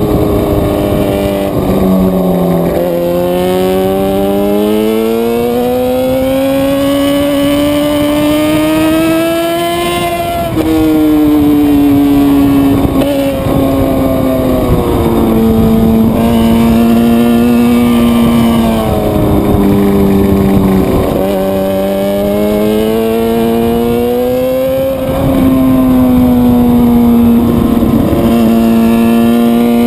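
Motorcycle engine running on the road, its revs climbing under throttle and dropping sharply several times as gears are changed, with steady wind noise over it.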